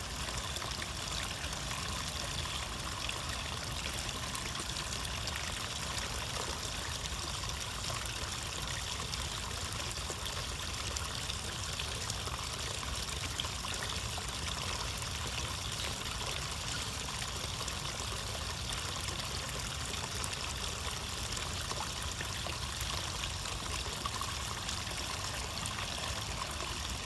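A thin stream of water pouring into a pond, trickling and splashing steadily.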